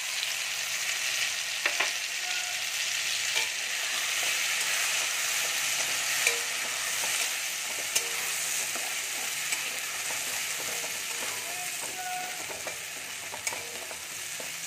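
Freshly added mustard-and-coconut paste sizzling as it fries in hot oil in a wok, with a spatula stirring it and a few sharp knocks of the spatula against the pan. The sizzle eases a little toward the end.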